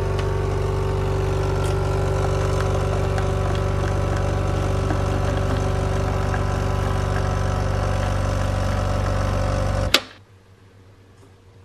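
Nescafé Dolce Gusto capsule coffee machine's pump running with a steady loud hum as it dispenses a frothy coffee drink into a glass cup, then cutting off abruptly with a click about ten seconds in.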